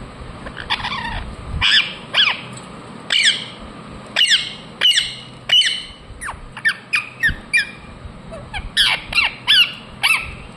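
Ringneck parrot squawking: a string of short, sharp calls, each dropping in pitch, coming in quick runs of two or three with brief gaps between.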